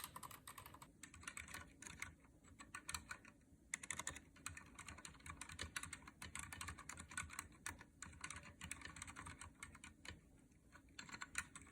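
Typing on a Cherry MX Board 3.0S RGB mechanical keyboard with Cherry MX Silent Red switches, which are linear and rubber-dampened. It makes a quick, quiet stream of soft keystrokes with a couple of short pauses.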